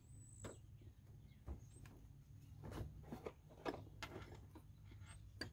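Faint handling noises: light clicks and rustles of hands moving along a serpentine belt and pulleys in an engine bay, with the engine off, over a low steady hum.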